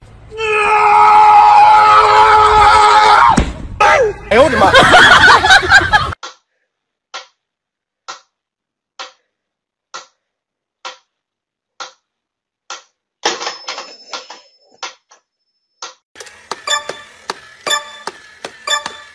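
A loud, long held cry opens, bending in pitch before it stops. Then a mechanical metronome ticks steadily, about one tick a second, eight ticks in all. Near the end a crawling toy soldier clicks rapidly.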